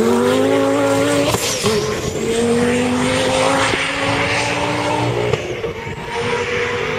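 Twin-turbo Lamborghini Gallardo V10 accelerating hard at full throttle. The engine note climbs through the gears, with upshifts just over a second in and again about five seconds in, and it fades slightly as the car pulls away.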